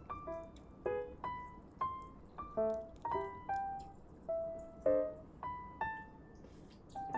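Gentle background music: a piano-like keyboard melody of single notes, each struck and fading, about two a second.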